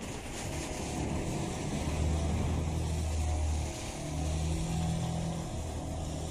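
A pressure washer's engine runs with a steady low hum while the wand's water jet hisses onto asphalt. The engine note dips briefly a little past halfway.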